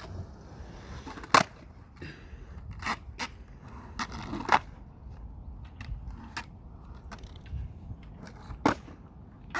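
A handful of sharp clacks or knocks at irregular intervals over a low rumble, the loudest about a second and a half in and again about four and a half seconds in.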